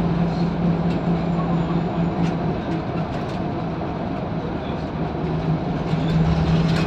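Inside a Scania L94UB Wright Solar single-deck bus at road speed: the diesel engine drones steadily over road noise, with occasional small rattles from the body. The engine note eases off a few seconds in and picks up again near the end.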